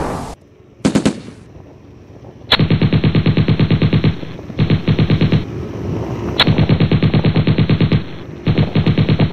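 Machine-gun fire laid over the footage as a sound effect: four bursts of rapid shots, about ten a second, each starting and stopping abruptly, after a short crack about a second in.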